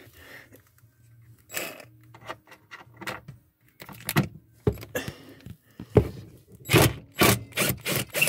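Irregular clicks, knocks and scrapes of hands and a tool working at the screw that holds a wire-harness clamp to a wooden cabinet, with a cluster of louder sharp knocks about two-thirds of the way through.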